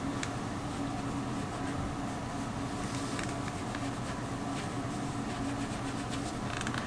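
Steady low mechanical hum, with a few faint brief ticks.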